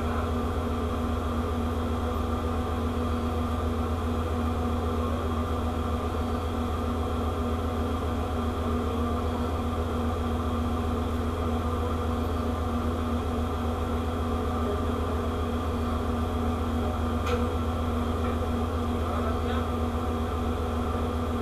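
Steady low hum of a ship's machinery, with several fixed tones held over it and a faint click late on.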